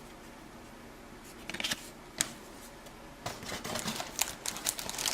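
Light clicks and taps of old cardboard trading cards being flipped through by hand. The clicks are sparse at first and come more often from about three seconds in.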